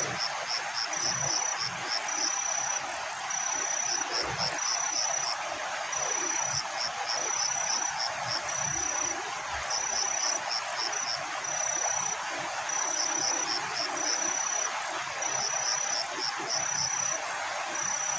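An insect, cricket-like, calling over and over in a high thin pitch. Long even notes alternate with quick runs of short chirps, over a steady hiss.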